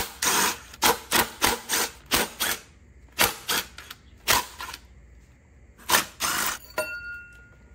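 Cordless impact driver hammering in a string of short bursts as it runs out the 10 mm bolts holding the fan pulley on a 12-valve Cummins engine. A brief high whine comes near the end.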